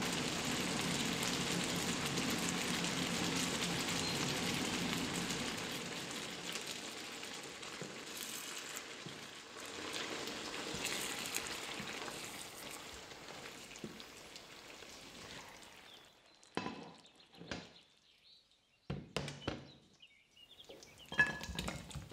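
Food sizzling in a frying pan, a steady hiss that fades after about five seconds. Near the end come a few sharp knocks and clinks.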